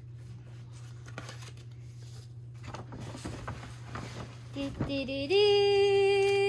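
Tissue paper rustling and crinkling as it is pulled out of a paper shopping bag. Near the end a person hums one long, steady note, louder than the paper.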